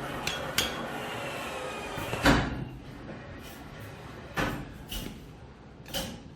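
Claw machine crane working: a faint motor whine for the first couple of seconds, then a loud thump about two seconds in and three lighter knocks of the claw and prize box against the machine.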